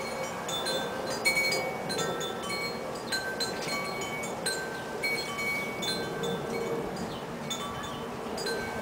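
Wind chimes ringing, struck irregularly at several different pitches, each note ringing on briefly.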